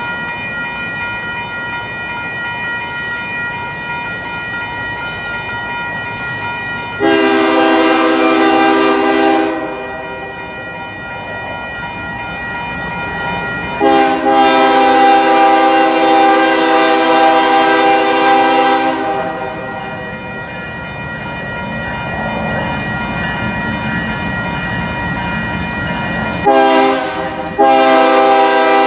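Five-chime Nathan K5HL air horn on a BNSF GE ES44DC locomotive sounding the grade-crossing signal: two long blasts, a short one, then a long one starting near the end. Under it a crossing bell rings steadily and the approaching train's rumble swells before the last blasts.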